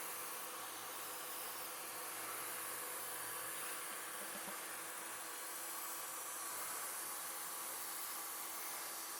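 Steady faint hiss of background ambience with a few faint steady hum tones and no distinct event.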